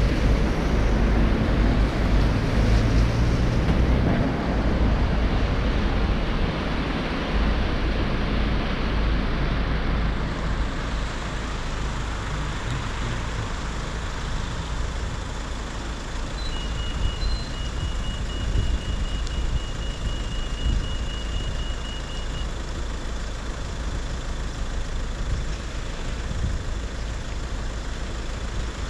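Traffic on a rain-wet road: a car swishes past close by in the first few seconds, then a steadier hiss of tyres and engines with a low rumble. A rapid, high-pitched beeping runs for about six seconds in the middle.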